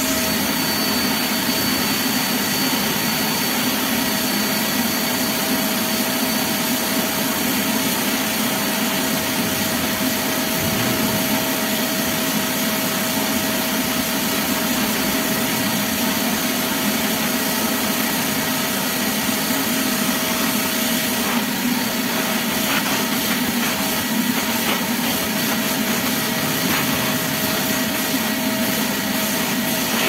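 Truper ASP-06 23-litre wet/dry drum vacuum running steadily with a constant whine while its brush nozzle is worked over a carpet floor mat, sucking up dirt. Faint crackles come through from about two-thirds of the way in.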